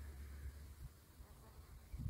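Near silence: faint outdoor background with a low, steady rumble.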